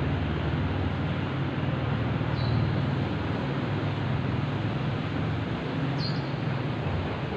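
Steady low rumble of engine noise, like traffic, with two short high chirps, one about two and a half seconds in and one about six seconds in.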